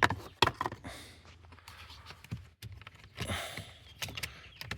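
Scattered sharp clicks, knocks and rattles of hands working plastic parts and wiring while trying to pry a piece loose, with a couple of brief rustling scrapes.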